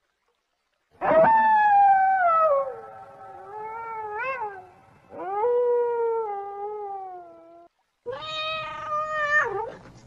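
Wolves howling: two long, drawn-out howls that fall in pitch, followed by a shorter third call near the end.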